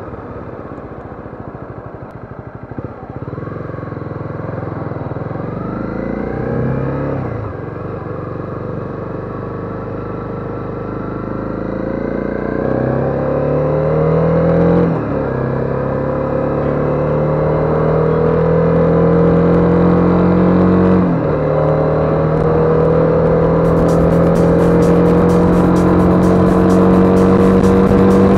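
Honda CB250R single-cylinder engine pulling through the gears on the road: its note climbs slowly in pitch, then drops sharply at each upshift, four shifts six to seven seconds apart.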